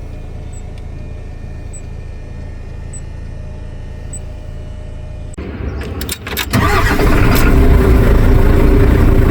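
A steady low hum with a faint high chirp about once a second, then about five seconds in a truck's diesel engine cranks, catches and runs loudly.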